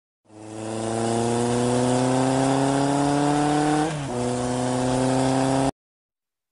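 A motor vehicle engine accelerating, its pitch rising slowly and steadily, with a short dip about four seconds in. It fades in and then cuts off abruptly, like an edited-in sound effect.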